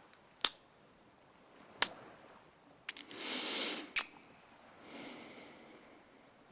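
Close-miked kissing sounds: three sharp lip smacks, with a breathy exhale just before the third and a softer breath after it.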